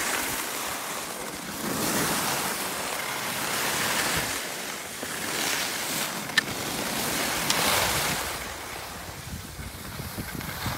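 Skis scraping and hissing over hard-packed snow, swelling and easing with each turn, with wind buffeting the microphone. Two short sharp clicks come about six and seven and a half seconds in.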